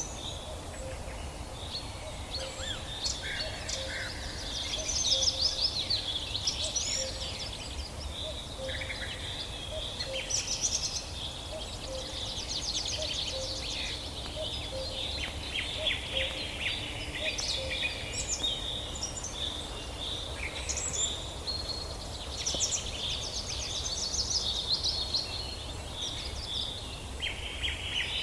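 Several forest songbirds singing at once: overlapping chirps, whistled phrases and fast trills, over a steady low background rumble.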